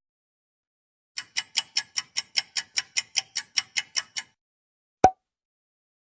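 Clock-ticking sound effect: about sixteen quick, even ticks, roughly five a second, for three seconds, then a single sharp click with a short ring about a second later.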